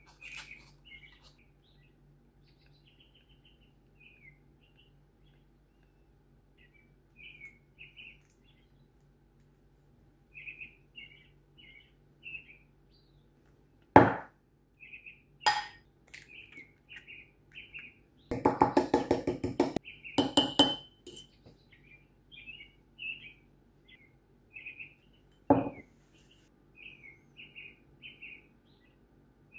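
Small birds chirping off and on throughout, with clinks of a fork and ceramic cup: a sharp clink about halfway in, then a fork rapidly beating egg and milk against the inside of the cup for about two seconds, and a single clink near the end.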